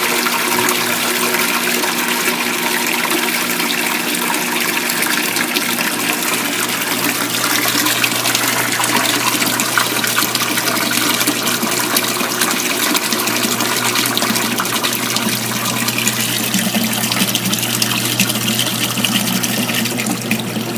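Washing machine drain pump running with a steady hum while water rushes out through the drain hose into the drain pipe, a loud, continuous gush.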